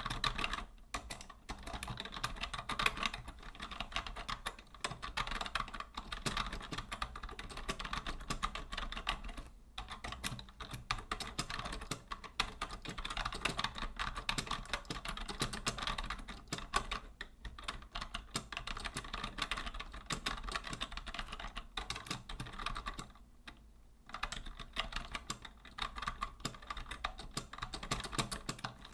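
Steady typing on a vintage Logitech Deluxe 104 wired rubber-dome keyboard: a dense, continuous run of key clicks, with a short pause about ten seconds in and another around twenty-three seconds in.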